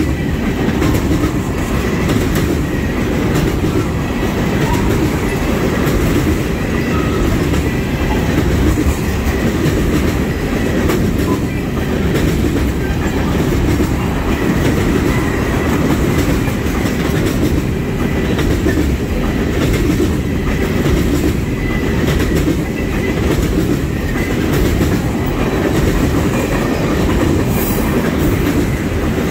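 Tank cars of a freight oil train rolling past close by: a steady rumble of steel wheels on rail, with the repeated clicks of wheels passing over rail joints.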